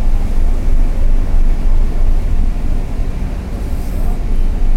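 Wind buffeting the microphone on the deck of a large passenger ship, a loud, steady, fluttering low rumble mixed with the ship's hum.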